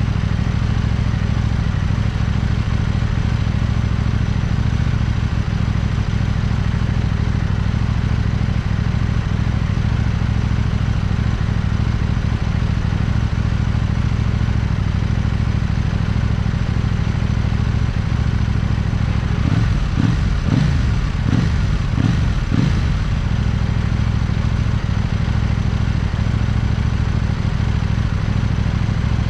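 KTM 790 Duke's parallel-twin engine idling steadily while stopped. A few brief rises and falls in pitch come about twenty seconds in.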